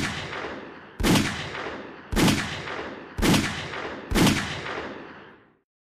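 Five shots from a short-barrelled 9mm pocket pistol firing Federal Hi-Shok 115-grain hollow points, about a second apart, each sharp crack dying away over about a second.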